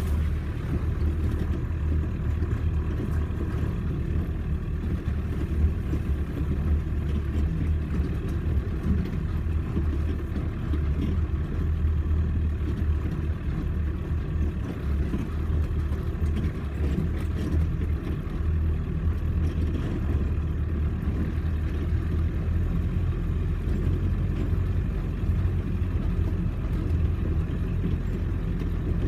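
Off-road four-wheel-drive vehicle's engine running steadily as it drives, a continuous low hum with small swells in level.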